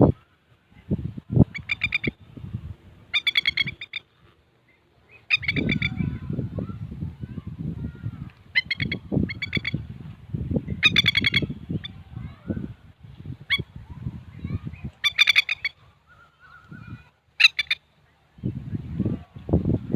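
A bird gives repeated harsh, chattering calls in short bursts of about half a second to a second, typical of an adult bird scolding in alarm near its young. A low rumbling noise comes and goes between the calls.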